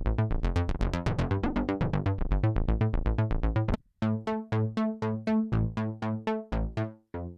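Polymax software synthesizer playing Prophet-5-style analog preset patches. First comes a fast, busy sequenced pattern of short plucked notes. After a brief break about four seconds in, a different patch plays slower pitched plucks over a low note, each note going quickly from bright to dull.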